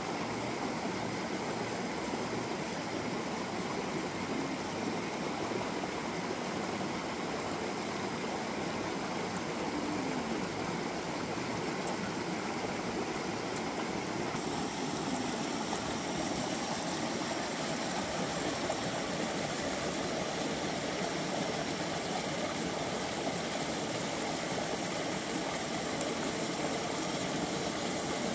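A shallow, rocky stream rushing steadily over stones, a constant even rush of water.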